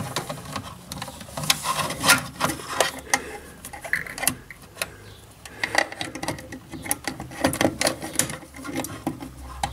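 Irregular plastic clicks, taps and rattles as a hand works to push a plug or device into a wall-mounted socket, over a low steady hum.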